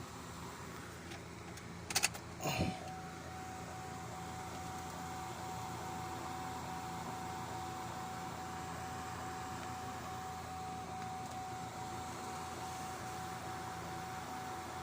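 Two sharp clicks, then a short falling sweep and a steady high electronic tone that dips faintly about three times a second, over a steady low hum.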